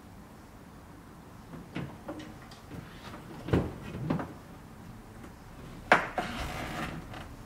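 Handling noises against a sideboard cabinet as someone sprawled across it reaches down behind it: two dull knocks about halfway through, then a sharp knock about six seconds in followed by a second of scraping and rustling.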